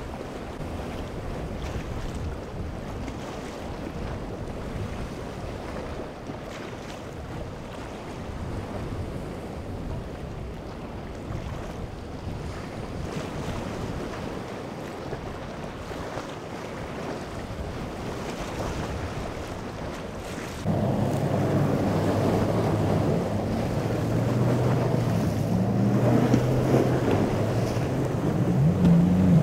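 Wind and breaking waves, with wind buffeting the microphone. About two-thirds of the way through, the sound jumps louder as a boat engine's steady low hum comes in over the wind and water.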